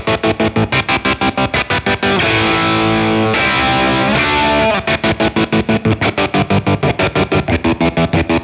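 Distorted electric guitar played through a Rodenberg Killmister kill-switch pedal in its auto-kill mode, the signal cut on and off in a rapid, even stutter. About two seconds in the chopping stops and a chord rings out unbroken, changes to another, then the stutter resumes.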